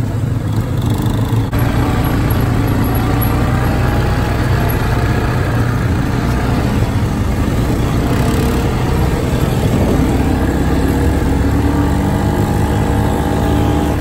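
Quad bike engine running while riding on a dirt road, with a steady low rumble. The engine note rises and falls in the second half as the throttle changes.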